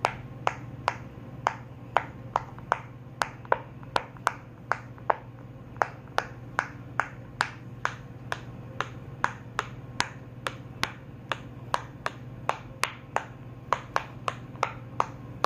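Rainbow silicone pop-it fidget toy being popped bubble by bubble with a finger: a steady run of sharp little pops, about two or three a second.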